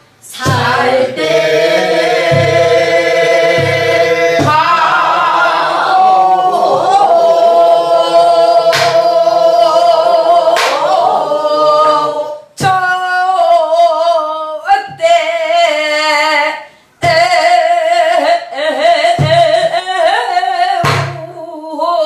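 Korean Namdo folk song sung with a heavy, wavering vibrato, accompanied by a buk barrel drum: deep thumps from the drumhead and sharp clicks from the stick. There are short breaks between phrases, about twelve and seventeen seconds in.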